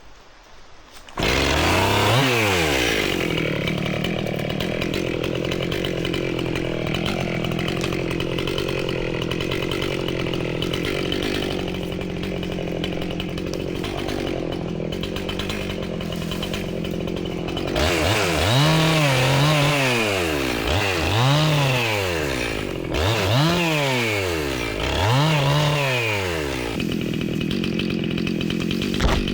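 Husqvarna 262XP two-stroke chainsaw coming in suddenly about a second in and running steadily at high speed, then revved up and down four times before settling back to a steady run.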